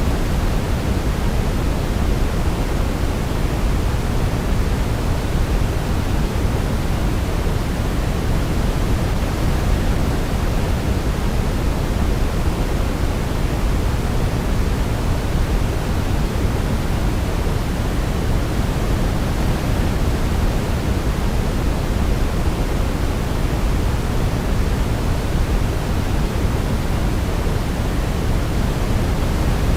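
Steady sleep-aid noise: an even, unchanging rush, strongest and deepest in the low end and thinning toward the top, with no melody heard.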